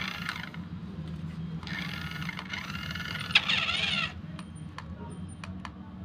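Sharp clicks and light rattles from a plastic toy RC car and its remote being handled, over a steady low hum. In the middle, for about two seconds, there is a louder warbling sound with wavering pitch.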